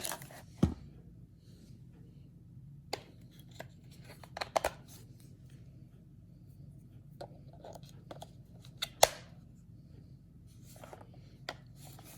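Scattered clicks and knocks of an Instax Mini 9 instant camera being handled while its batteries are put in. The sharpest clicks come about a second in and near nine seconds, with softer rustling and tapping between.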